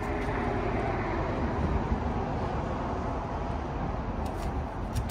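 Steady low rumble of idling diesel truck engines, with a couple of faint clicks near the end.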